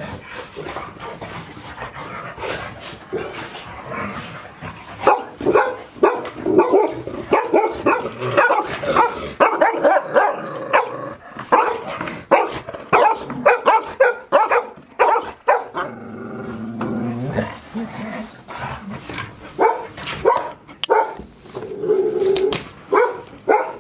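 Five-month-old golden retriever puppies barking and yipping in rapid short bursts, with a lower growl a little past the middle.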